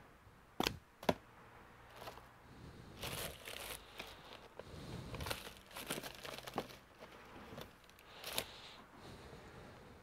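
Clear plastic bag crinkling and rustling as it is handled, irregular crackles through the middle, with a couple of sharp clicks just after the start and another near the end.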